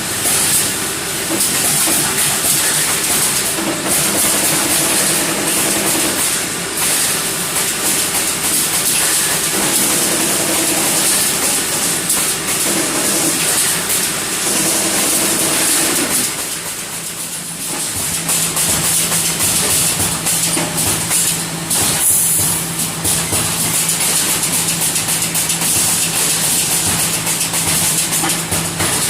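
Electric welding machine at work, a dense crackling hiss. A steady electrical hum joins it about two-thirds of the way through.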